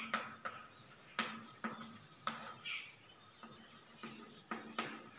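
Chalk tapping and scratching on a blackboard as words are written: about a dozen short, faint clicks, irregularly spaced.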